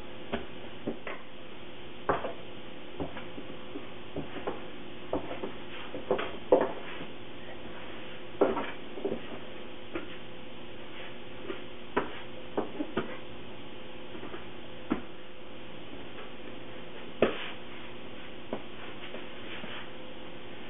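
Scattered irregular knocks and taps of a bench scraper cutting dough on a wooden work bench, and of dough pieces being set onto a digital scale and the bench, over a steady faint hum.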